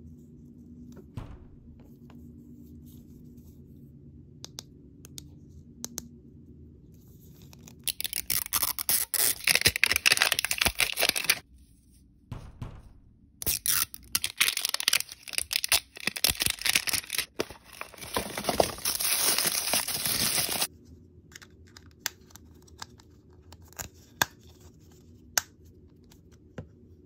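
Plastic wrapping and seal strip of an L.O.L. Surprise toy ball being peeled and torn open: two long stretches of loud crackly tearing, the first starting about eight seconds in and the second running to about twenty seconds. Soft plastic clicks and taps come before and after.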